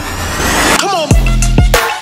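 Electronic intro music. A rising noise sweep builds, a short downward glide follows, and about a second in a heavy beat with deep bass kicks drops in.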